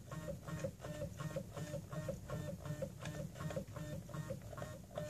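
Sparkmaker SLA resin printer's Z-axis stepper motor slowly driving the build plate down its lead screw toward the bottom, as part of bed levelling. A faint mechanical whine pulses evenly about three times a second.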